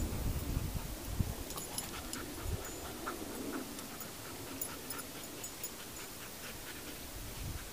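German Shepherd dog panting, with faint scattered clicks.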